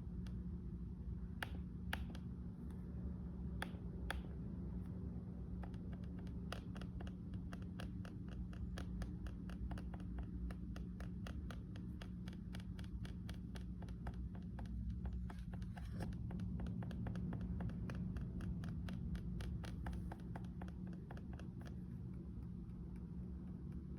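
Finger taps on the touchpad of a Lenovo IdeaPad Slim 3 15AMN8 laptop, each tap giving a sharp click from the pad, which is noisy under single and double taps. A few spaced taps come first, then a fast run of repeated taps from about six seconds in until about twenty seconds, over a steady low hum.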